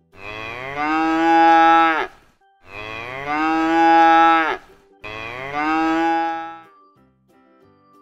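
A cow mooing three times. Each moo is a long call of about two seconds that drops in pitch at its end.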